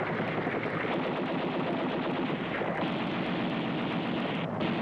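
UH-1 Huey helicopter in flight: a steady, fast chopping of its rotor blades over the engine noise.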